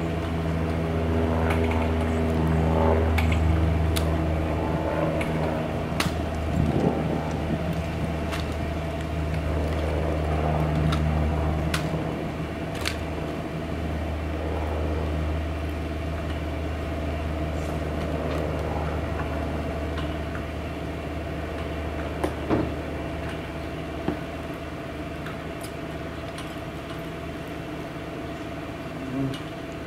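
A steady low mechanical hum, like an idling engine or motor, with a few faint clicks and knocks scattered through it.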